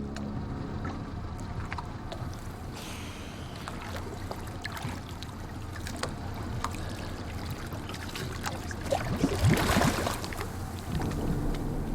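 Water sloshing around a small boat, with scattered knocks and a louder rush of water about nine seconds in.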